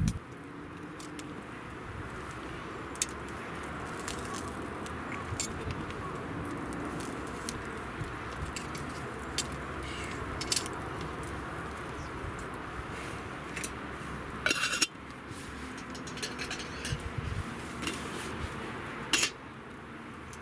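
Metal tongs, a wire grill grate and a cooking pot clinking over a crackling wood fire. There is a louder clatter about two-thirds of the way through and another sharp clink near the end.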